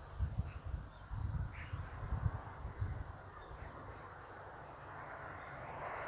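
Outdoor ambience: wind gusting on the microphone in low rumbles, over a steady high insect drone and a few faint bird chirps. A rushing noise swells near the end.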